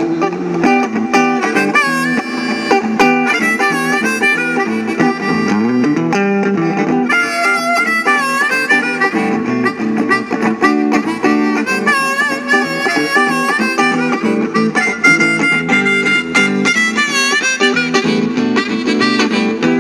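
Blues played on harmonica over guitar, the harmonica bending and wavering its notes above steady chords.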